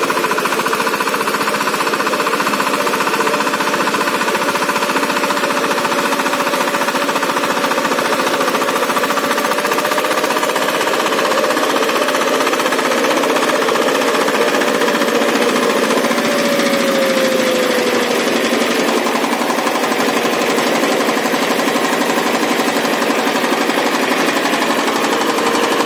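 VST Shakti 130 DI power tiller's single-cylinder diesel engine running steadily under load with a rapid diesel clatter as the rotary tiller works the soil. A whine in the engine noise falls in pitch about two-thirds of the way in.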